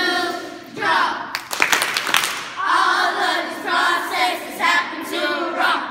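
A group of children singing a song together in unison, with a few sharp hand claps about a second and a half in.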